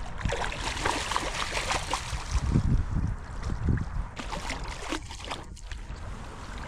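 Irregular splashing and sloshing in shallow river water as a hooked steelhead is brought in by hand, over the steady rush of the river.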